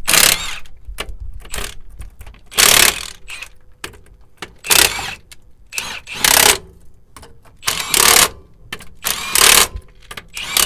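A power tool driving a cam lock socket on a steel lug nut in short bursts, about seven of them, each about half a second long and coming roughly every one and a half seconds, as the nut is run off and back on over and over.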